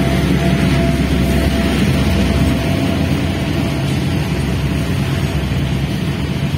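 CC202 diesel locomotives rumbling as the last of them passes, giving way after a couple of seconds to the steady rumble of coal hopper wagons rolling by on the rails.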